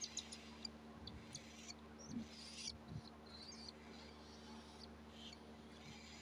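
Pet cockatiel making faint, short high squeaks and scratchy rustles, with a few soft low thumps.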